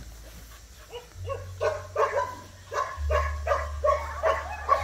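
A dog barking in a quick run of short barks, about three a second, starting about a second in.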